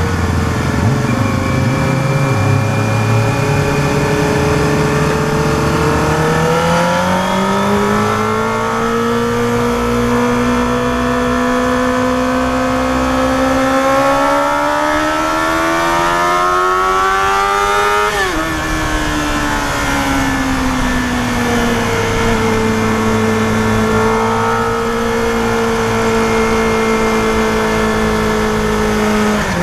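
Yamaha FZR250R's inline-four engine running hard at high revs while riding uphill. The engine note climbs steadily for about twelve seconds, drops sharply a little past halfway, then holds fairly steady.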